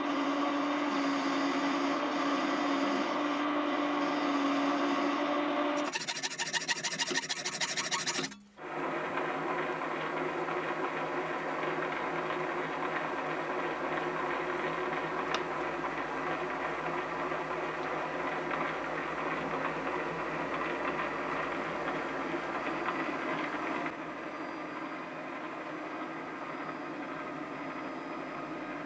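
A small metalworking machine tool running steadily with motor and gear hum. A rapid even ticking lasts about two seconds, then the sound cuts out briefly at about eight seconds and comes back as a different steady machining noise, which drops a little in level near the end.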